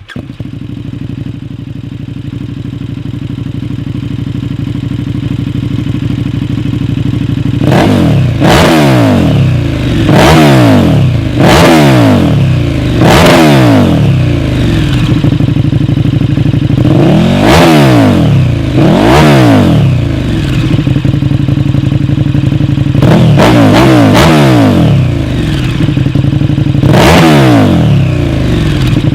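KTM 1290 Super Duke R's V-twin engine, fitted with an Akrapovic Evolution Line exhaust, starts and idles for several seconds. It is then revved in a series of about nine quick throttle blips, each a sharp rise in pitch that falls straight back to idle.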